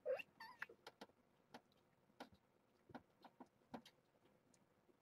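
A Siamese cat gives one short meow right at the start, followed by a scatter of faint clicks and taps.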